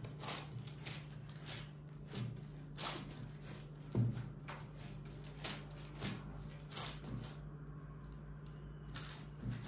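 Hands pressing and pushing a sheet of yeasted dough out across a parchment-lined baking tray: irregular soft pats and rustles of the baking paper, about one every half second to second, with a few soft thumps, over a steady low hum.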